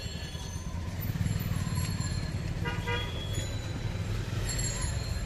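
Street traffic running steadily, with a short vehicle horn toot about three seconds in.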